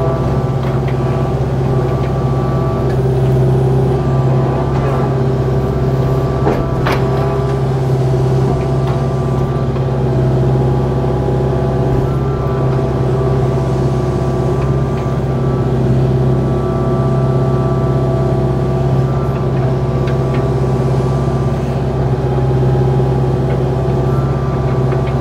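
Kubota KX057-4 excavator's four-cylinder diesel engine running steadily, with a single sharp knock about seven seconds in.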